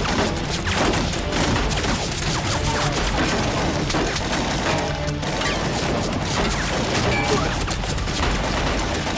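Battle-scene sound effects: continuous volleys of gunfire and explosions, mixed with background music.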